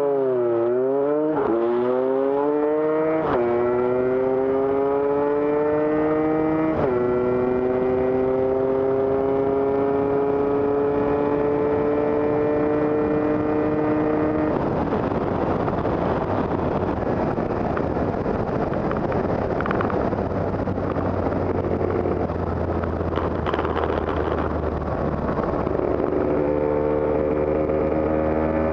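A two-stroke Lambretta scooter engine with a TS1 kit makes a full-throttle sprint run. At the launch the revs dip, then climb, with sudden drops in pitch at gear changes about three and seven seconds in, and the note then holds high. About halfway the throttle shuts and the engine note gives way to wind and road noise while the scooter coasts. Near the end a steadier, lower engine note returns.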